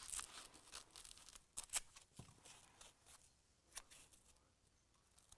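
Faint, scattered snips of scissors cutting a kitchen sponge into small cubes.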